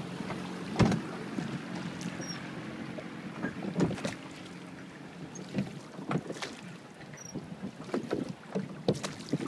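Oars splashing and knocking in the water of a rowed boat, irregular strokes over wind on the microphone. A steady outboard-motor hum from a passing inflatable motorboat runs through the first few seconds and fades.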